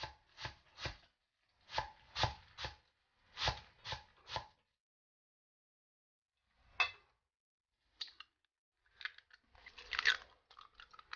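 Cleaver chopping Chinese chives on a wooden chopping board: quick, even strokes in three short runs over the first four seconds. Near the end, a few sharp knocks and clicks as eggs are cracked into a stainless-steel bowl.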